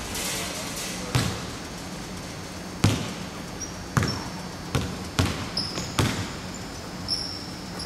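Basketball bouncing on a hardwood gym floor: six or so sharp, echoing bounces at irregular spacing, with short high sneaker squeaks in the second half.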